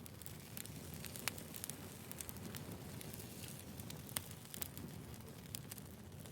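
Wood fire burning steadily with a low rumble and scattered sharp crackles and pops, the loudest about a second in and again about four seconds in.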